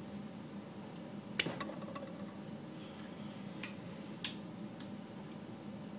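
A few faint sharp clicks and taps over a low steady room hum, the clearest about a second and a half in, two smaller ones a couple of seconds later.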